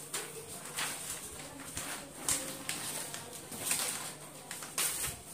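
A series of short rustles as a stack of paper or thin plastic sheets and the things in a wooden wardrobe are handled and moved, about one a second.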